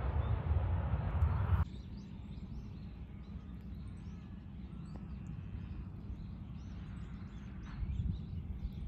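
A Boeing 737's engines rumbling loudly as it taxis close by, cut off abruptly about a second and a half in. After that comes a quieter steady low hum from the distant airport, with small birds chirping repeatedly over it.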